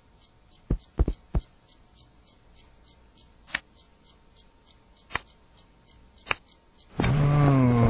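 Scattered sharp clicks and taps over a faint, even ticking of about four a second. Near the end a cat starts a loud, low, drawn-out meow.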